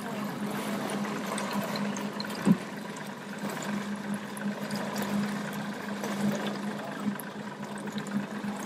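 Boat motor running steadily with water rushing along an aluminium hull. A single sharp knock about two and a half seconds in.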